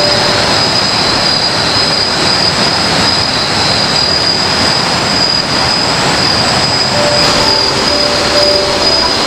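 Night-time forest insect chorus, a steady high-pitched shrilling that never lets up, over a continuous rushing hiss. A few short, mid-pitched calls come in near the end.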